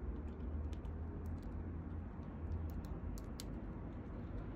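Young Eurasian red squirrel gnawing and chewing food held in its forepaws: irregular sharp little clicks, over a low steady hum.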